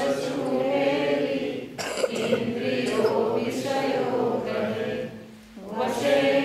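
A group of voices singing a slow chant in unison, with long held notes. The singing pauses briefly about five seconds in, then starts again.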